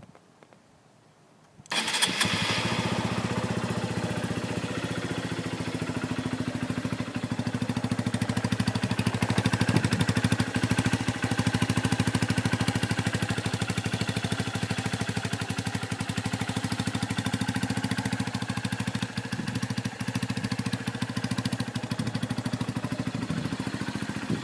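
2012 Honda CBF125's single-cylinder four-stroke engine, breathing through a Scorpion aftermarket silencer, starts up about two seconds in and settles into a steady idle.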